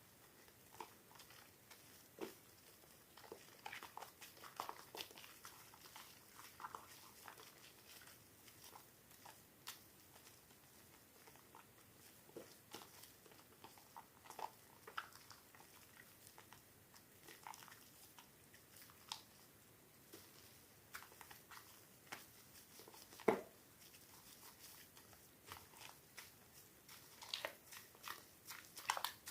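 Soaked soap being squeezed and crumbled by hand: faint, irregular crackles and squishes, with one sharper crack late on.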